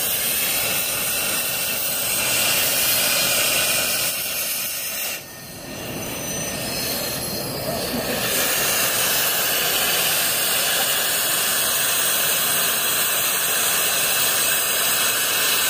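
Oxyacetylene torch with a gouging (scarfing) tip cutting, a steady hissing roar of the cutting-oxygen jet blowing molten steel out of the backing bar. It dips briefly about five seconds in, then picks back up.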